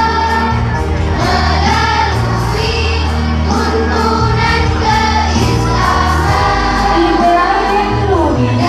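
A choir singing a madrasah hymn over a musical accompaniment with a bass line and a steady beat.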